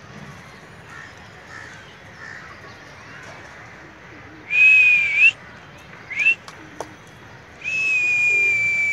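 Whistling on one high, steady note: a loud whistle of about a second about halfway in, a short rising one just after, then a long held whistle starting near the end, each turning up in pitch as it stops.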